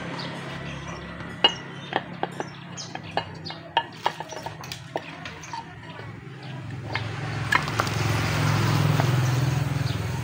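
Metal clicks and clinks from hand tools and small steel parts against a motorcycle's alternator stator and its aluminium magneto cover as the stator is taken out, about a dozen sharp taps in the first half. A low rumble swells up in the second half.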